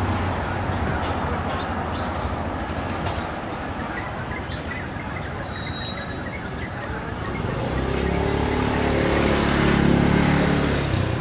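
Street traffic noise, with a motor vehicle's engine hum swelling from about eight seconds in, loudest near ten seconds and easing off as it passes. Scattered short clicks and a brief high chirp sit over it.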